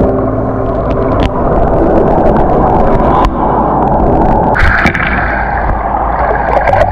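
Waterfall water rushing and churning close to the microphone: a loud, dense, steady noise with occasional sharp knocks.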